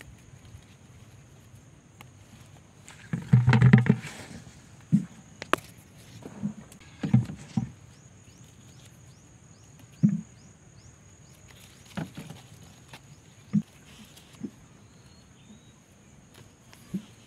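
Irregular rustles and soft thumps from handling tomato plants and picking the fruit, the loudest a rustle about three seconds in, over a steady high-pitched hum.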